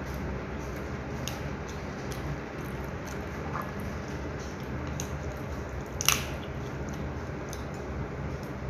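Cooked meat on the bone being torn apart by hand, with soft wet tearing. A few light clicks come through, with one sharper click about six seconds in, over a steady low hum.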